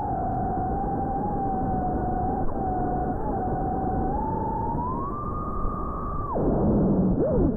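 FPV quadcopter's motors and propellers whining at a steady pitch, rising as the throttle goes up about two-thirds of the way in, then dropping sharply to a low hum as the throttle is cut.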